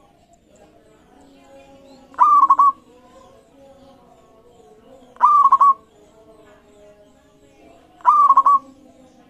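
Zebra dove (perkutut) cooing: three short phrases about three seconds apart, each a half-second run of quick notes.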